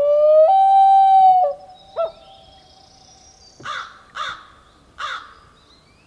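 Common loon wailing: a long call that rises, steps up to a higher held note about half a second in, and breaks off after about a second and a half, with a brief extra note at about two seconds. Three short harsh calls follow in the second half.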